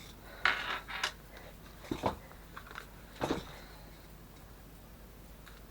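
A few short rustles and knocks of handling, bunched in the first three and a half seconds.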